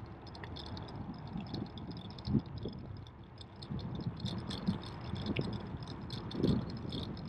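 Ride noise from a bicycle on a paved path: a steady low rumble of tyres and wind on the microphone, with a few bumps and light, irregular rattling and ticking throughout.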